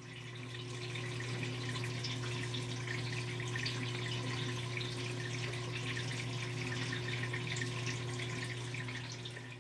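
Aquarium filter outlet splashing and bubbling water at the surface of the tank, over the steady low hum of the pump.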